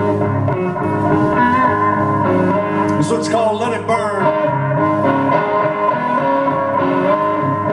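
Live blues band playing, with an electric guitar out front over bass and drums.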